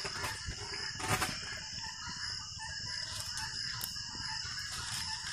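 Fowl clucking and crowing over a steady high-pitched hum, with a short sharp noise about a second in. Dry sticks and straw rustle faintly in the hand.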